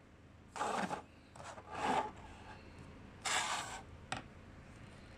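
Hands handling cardboard: three short scraping sounds in the first four seconds, the middle one longest, then a light click.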